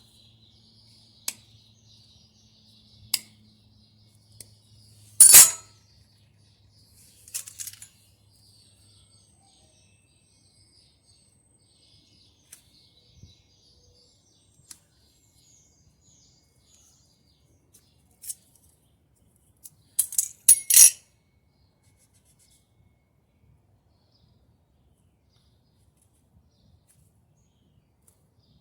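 Scissors snipping and clicking now and then while cutting the stitched seam of an old dryer drum felt seal, with quiet gaps between cuts; the loudest snips come about five seconds in and a cluster about twenty seconds in.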